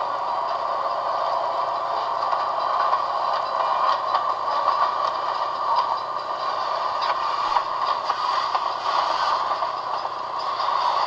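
Steady mechanical clatter and hiss, sitting mostly in the middle range with little bass, dotted with faint scattered clicks.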